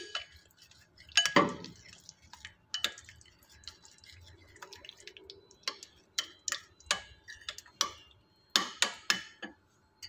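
Metal spoon stirring a thick white sauce in a glass bowl, clinking and scraping against the glass in irregular clicks, with a louder knock about a second in.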